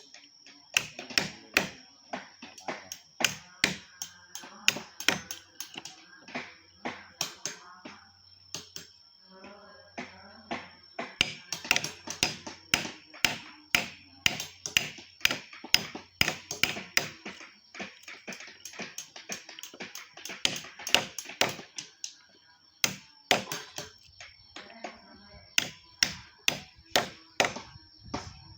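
Wood carving: a carving tool cutting into wood in sharp taps, a few a second, in irregular runs with brief pauses.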